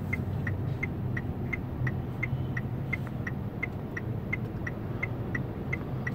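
Car turn-signal indicator clicking steadily, about three clicks a second, as the driver signals to change lanes. Under it is the low, steady hum of the engine and road noise inside the cabin.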